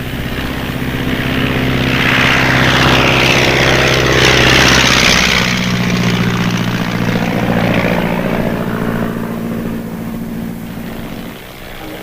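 Single-engine light observation plane's piston engine and propeller running at power and passing by. The sound swells to a peak about halfway through, the engine note drops in pitch around then, and it fades off near the end.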